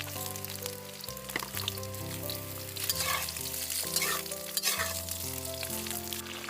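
Wild mushrooms and preserved pork sizzling as they are stir-fried, with a few scraping strokes of stirring. Background music with slow sustained notes plays under it.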